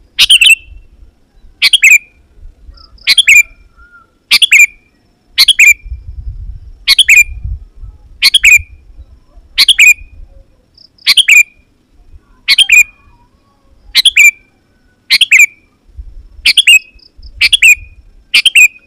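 Sooty-headed bulbul giving short, sharp calls over and over, about one every second and a bit, some of them doubled. This is the loud, insistent calling used as a lure to draw in wild bulbuls.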